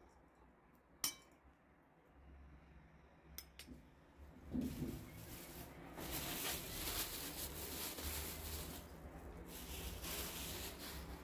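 A spoon clicks once against the bowl, then disposable plastic gloves and wrapping crinkle and rustle for several seconds while raw minced meat is handled.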